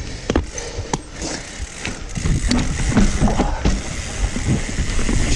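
Mountain bike rolling down a dirt trail, with rapid mechanical ticking from the bike and knocks and rattles over the ground. It gets louder and rougher about two seconds in.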